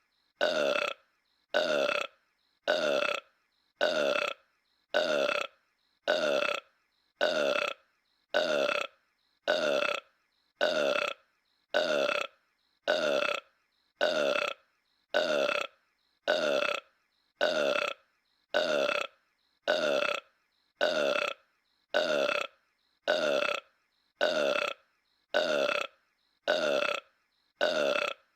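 A cartoon character's voiced burp, the same short belch repeated identically about once a second with a moment of silence between each.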